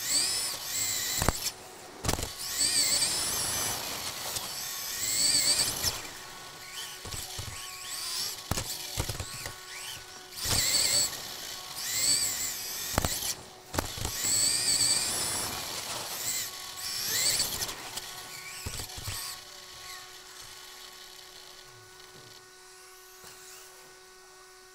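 Xray XB2 2WD buggy's 13.5-turn stock brushless motor whining, rising and falling in pitch with the throttle, with several sharp knocks from the chassis over the track. The whine dies away about 20 seconds in, leaving a steady hum.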